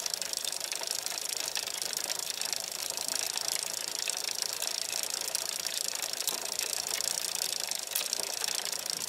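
Bicycle rolling along a rough tarmac lane: a fast, steady rattle of small clicks over a high hiss.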